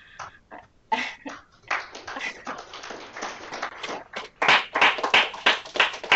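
A small group applauding in a room, starting about a second and a half in and growing louder, with distinct individual claps near the end.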